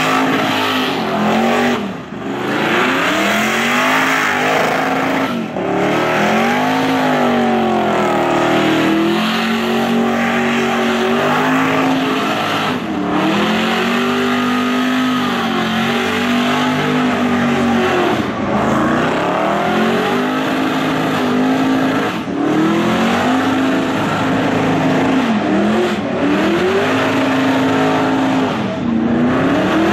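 Supercharged V8 of a Holden Commodore revving hard through a burnout, its pitch swinging up and down again and again with short drops every few seconds, over a steady hiss of spinning tyres.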